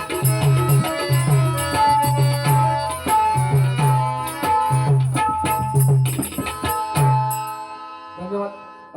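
Instrumental music led by tabla, with deep bass strokes about once or twice a second under held melody notes. The music fades out about seven and a half seconds in.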